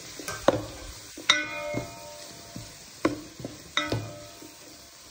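A metal spoon clinking against a pan while chicken and vegetables are stirred as they fry, with a faint sizzle underneath. There are several sharp clinks, and two of them ring on briefly.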